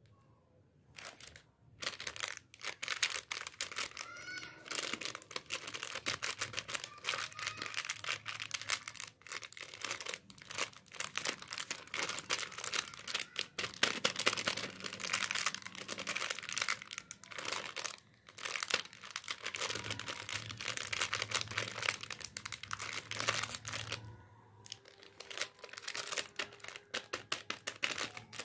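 Crinkly plastic lollipop packet being handled and crinkled by hand while it is opened: a dense, continuous run of crackles, with a short break about 24 seconds in.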